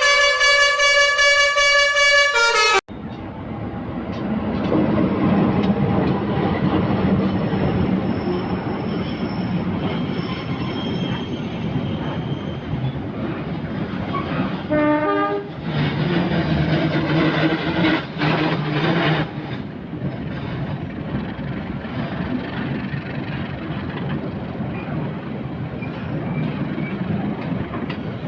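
A multi-note telolet horn melody plays for the first few seconds and cuts off abruptly. Then a passing train gives steady rail noise, with a horn sounding for about three seconds around the middle.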